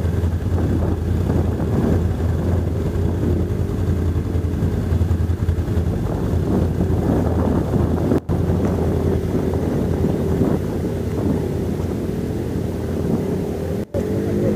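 ATV engine running at low speed close by, a steady low drone with a higher engine note that wavers up and down. The sound cuts out for an instant twice, about eight seconds in and near the end.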